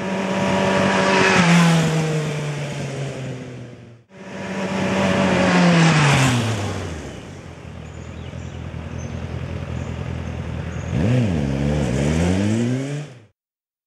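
Sport motorcycle riding past twice, each time getting louder as it approaches and dropping in pitch as it passes. Near the end the engine note swings down and up several times, then cuts off abruptly.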